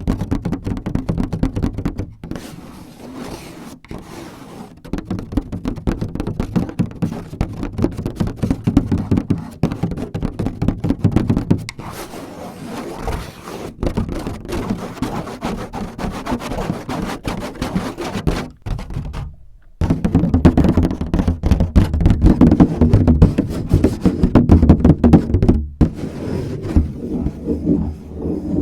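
Rapid tapping and scratching with the fingertips close to the microphone, a dense run of short knocks and scrapes with a brief break about two-thirds through.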